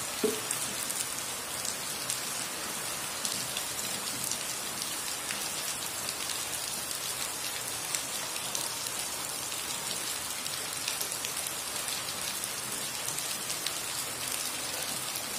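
Heavy rain falling on a concrete yard: a steady hiss with scattered drop splashes.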